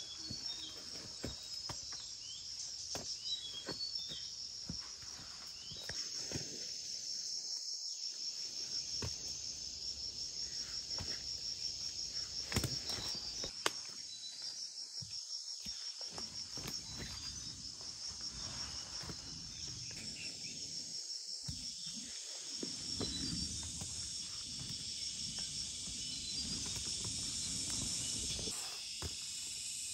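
A steady high chorus of insects trilling, with light footsteps and rustles in leaf litter.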